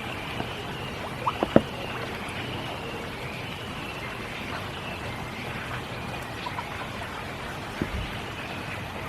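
Steady spring rain falling, with a few louder single drops striking close by, a cluster about a second and a half in and one more near the end.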